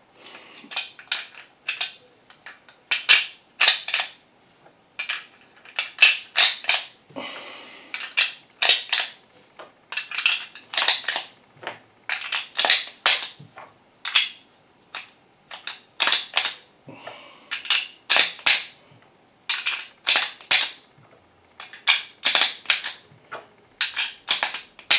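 Speed Beez magazine loader feeding 9mm cartridges into a Glock magazine: each round is dropped into the loader and the scissor-like handles are squeezed to push it down. The result is a run of sharp clicks and snaps, a few every second or two.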